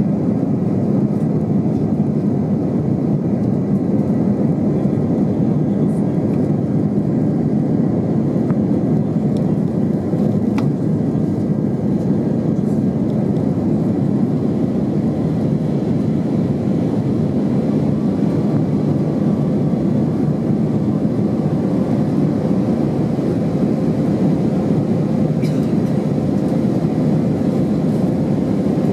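Airbus A319 airliner under way, with a steady low rumble of jet engines and rushing air that holds an even level throughout.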